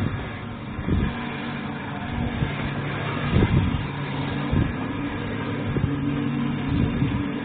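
Electric guitar playing free-improvised music: held, distorted low notes that change pitch in steps, each new one picked with a sharp attack, over a gritty noise.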